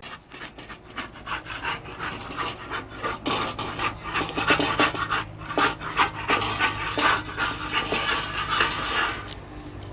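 Rapid, irregular scraping strokes of something hard rubbed against a surface, starting just after the opening and stopping abruptly about nine seconds in.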